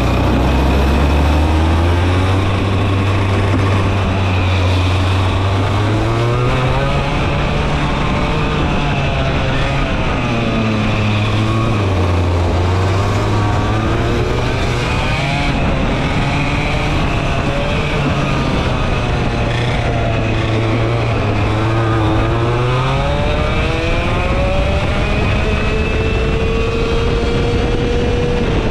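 Vortex ROK GP 125cc two-stroke kart engine heard onboard at racing speed, revving up and dropping off again and again as the kart accelerates and lifts through corners, its pitch rising and falling every few seconds.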